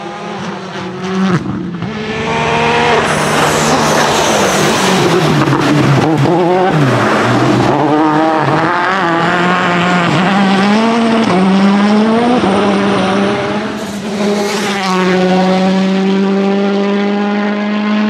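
Citroen C3 WRC rally car's turbocharged 1.6-litre four-cylinder engine at full throttle, revving up and dropping back through quick gear changes. It passes by in several short passes joined one after another, ending in a long steady high-revving run.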